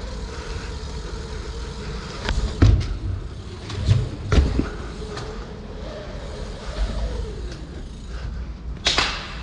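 Dirt jump bike rolling over smooth indoor ramps: a steady rumble of tyres, with a humming tone that rises and falls as the speed changes. Several hard knocks and clatters from the bike come between about two and four and a half seconds in, and a short sharp rush of noise comes near the end.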